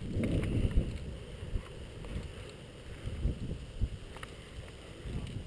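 Low rumble of wind buffeting the microphone, strongest in the first second, with a few faint small clicks.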